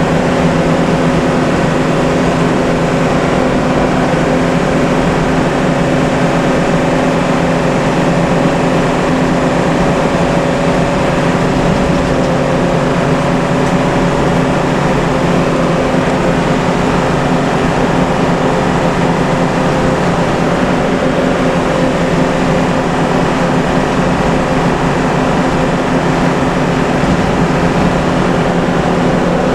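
Bus engine running steadily with tyre and road noise, heard from inside the moving bus at a constant cruising speed. It is an even drone with a few steady low hums, unchanging throughout.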